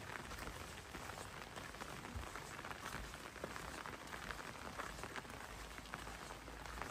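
Steady rain falling, with many individual drops ticking on nearby surfaces.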